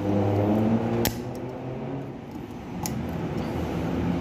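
Snap ring being fitted with circlip pliers into the groove of a steering knuckle's wheel-bearing bore: two sharp metallic clicks, about a second in and near three seconds, with a few lighter ticks between. A steady mechanical hum runs underneath.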